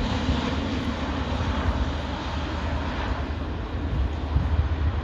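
Airbus A400M Atlas in flight, its four turboprop engines giving a steady, loud, low-heavy drone.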